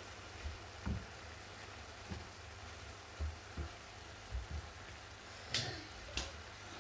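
Spatula stirring minced meat in a frying pan over a faint steady sizzle, with soft bumps as the meat is pushed around and two sharp taps of the spatula against the pan near the end.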